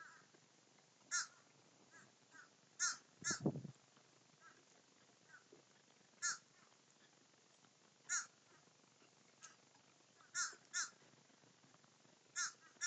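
Crows cawing: about eight short, single caws spaced irregularly, a couple coming in quick pairs. A low muffled thump sounds about three and a half seconds in.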